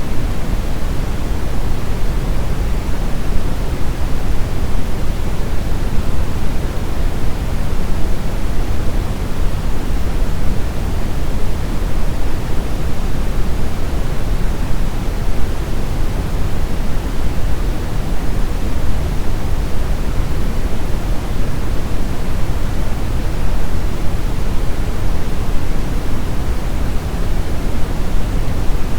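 Steady brown noise: a deep, even rumbling hiss with most of its energy in the low end, unchanging throughout.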